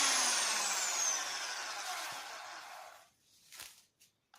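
Electric drill motor whirring down after release, its pitch falling steadily and its noise fading out about three seconds in. A couple of faint clicks follow.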